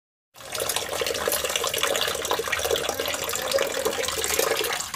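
Tap water running into a metal pot of cut fish pieces, with splashing and sloshing as a hand rinses the fish in the water.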